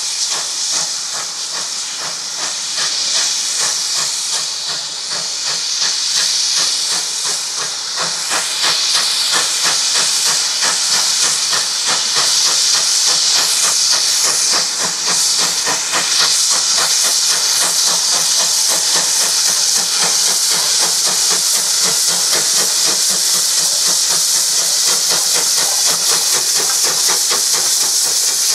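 GWR 57xx Class 0-6-0 pannier tank steam locomotive working a train, with loud steam hissing over a quick, even beat. It grows louder over the first dozen seconds or so as the engine draws near, then holds steady.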